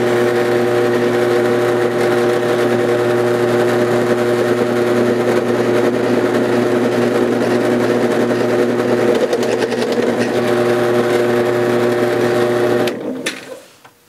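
Drill press motor running steadily as it spins a four-pin roll crimper down on the mouth of a 12-gauge slug shell, rolling the plastic hull over. The hum stops about 13 seconds in.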